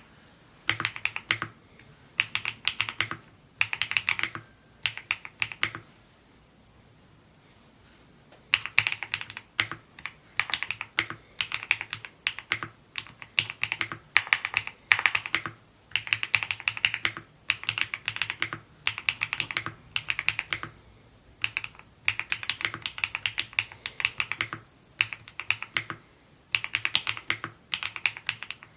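Typing on an Evo80 mechanical keyboard: runs of fast keystroke clicks in bursts, with a pause of about three seconds in the first third.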